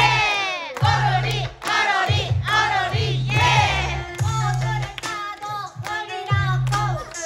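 A group of elderly women chanting and rapping together in Korean over a hip-hop backing track with a heavy, regularly pulsing bass.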